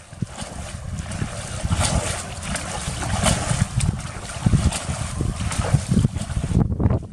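Shallow muddy water splashing and sloshing as a person wades and scoops with a plastic bucket, in irregular bursts, under gusty wind rumbling on the microphone.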